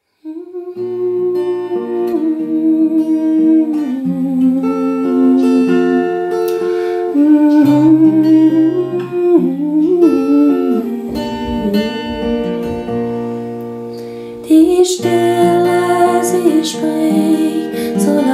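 Acoustic guitar, played with a capo, sounding slow chords while a woman hums a wavering melody over it. About fifteen seconds in she switches to singing in German, and it gets suddenly louder and brighter.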